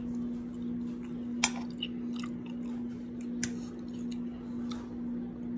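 Close-up chewing and mouth sounds of a person eating rice and poke, with two sharp clicks about a second and a half and three and a half seconds in, over a steady low hum.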